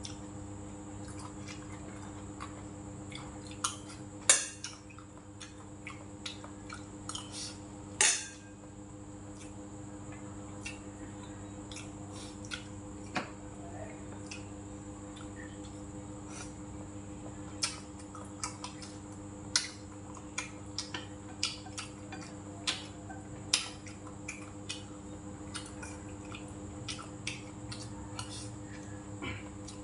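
Chopsticks and a metal spoon clicking and scraping against bowls, with the chewing sounds of a person eating. There are many scattered clicks, the loudest about four and eight seconds in, over a steady background hum.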